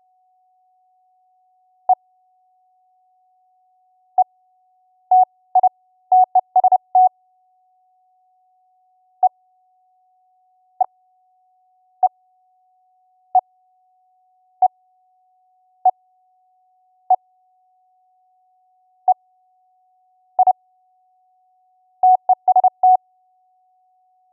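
Pure sine-wave CW Morse oscillator tone, keyed on and off from iambic paddles in short beeps of one steady pitch. Some beeps come singly, a second or two apart, and some come in quick runs of several.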